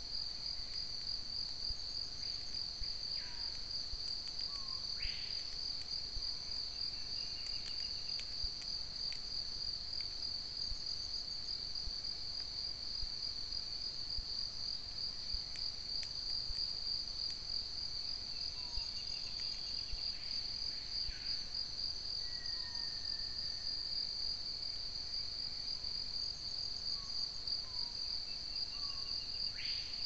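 Steady high-pitched insect chorus, a continuous trill, from forest insects such as crickets, with scattered short bird calls over it.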